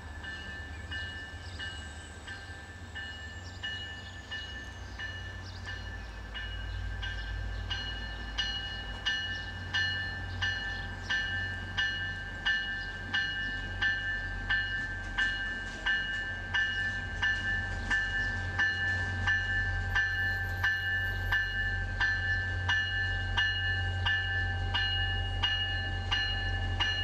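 Diesel commuter rail locomotive's bell ringing in even strokes, about one and a half a second, growing louder as the train approaches, over a low engine rumble.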